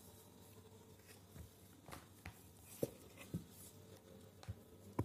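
Kittens scuffling in play on a wooden platform: a scattering of soft taps and knocks, about six, as paws and bodies hit the wood and rope, the loudest near the end.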